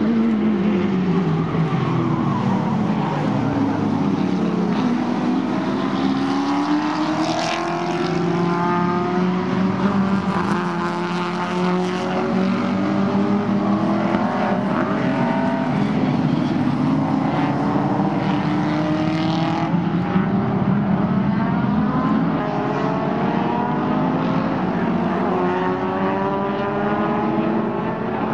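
Several Group A and Group C touring cars racing past at full throttle. Their engines overlap, and their notes fall and rise as the cars ease off and accelerate again through the corners.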